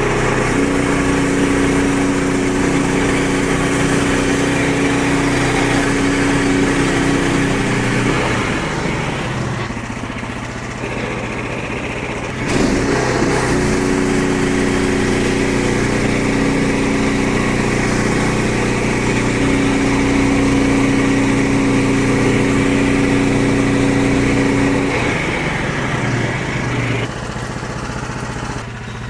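Small gas engine of a Frontier OS23 portable bandsaw sawmill running steadily at speed. Its tone fades around eight seconds in, comes back suddenly at about twelve seconds, and drops away again near the end.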